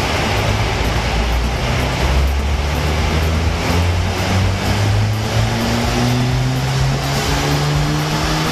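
Audi TT 2.0 TFSI turbocharged four-cylinder engine pulling under full load on a chassis dyno, its pitch rising slowly and steadily as the revs climb through a gear, over a steady rush of tyre and roller noise.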